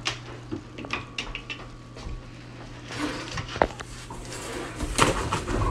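Scattered clicks and knocks of kitchen knives set down and handled on a plastic cutting board, then a small knife cutting into a tough sturgeon steak. A low steady hum runs underneath.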